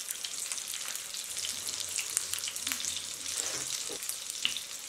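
Oil sizzling and crackling steadily around batter-filled capsicum rings shallow-frying in a non-stick frying pan on medium-low heat.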